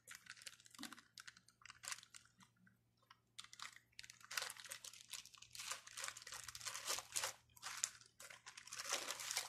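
Thin plastic bag crinkling and rustling as hands press and seal the edges of a folded raw masa quesadilla inside it, in faint irregular bursts that thin out about three seconds in and grow busier again after four seconds.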